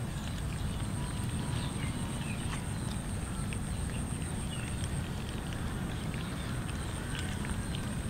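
Many cats eating cooked rice from a metal tray: lots of small, irregular chewing and lapping clicks over a steady low rumble.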